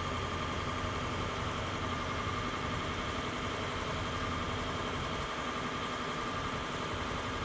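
Ambulance engine idling steadily, an even hum with no change in level.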